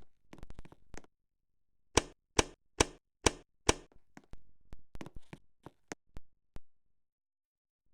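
Wobbling ceiling fan knocking and clicking as it turns: five loud knocks about two and a half a second, then quicker, lighter, irregular clicks that die away.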